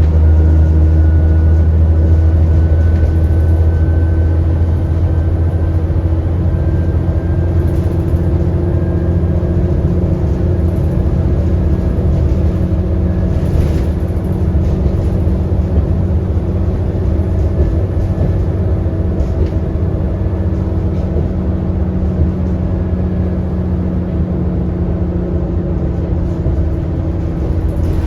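ADL Enviro400 double-decker bus engine running steadily under way, heard from inside the bus, with a faint high whine rising slowly through the first half.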